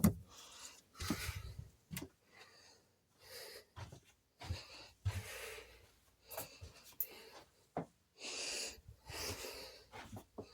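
A person breathing audibly close to the microphone, a hissy breath every second or two, with a few soft knocks and rustles from handling.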